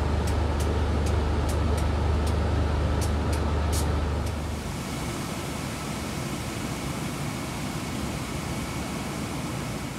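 NR class diesel-electric locomotive idling: a steady, deep engine hum with light, irregular ticking over it. A little over four seconds in it cuts abruptly to a quieter, steady hiss and hum with a faint high whine.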